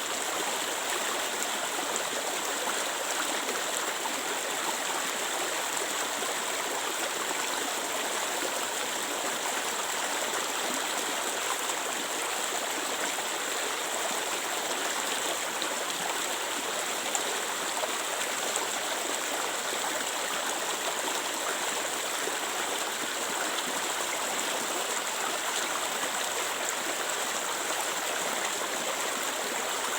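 Clear stream water flowing and babbling steadily, an even rushing sound.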